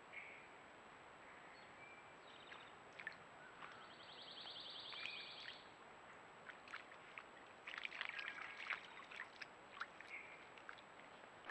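Quiet outdoor ambience with a few faint high chirps and a short rapid trill. About eight seconds in comes a cluster of soft clicks and rustles: a white-tailed deer stepping through wet mud and grass.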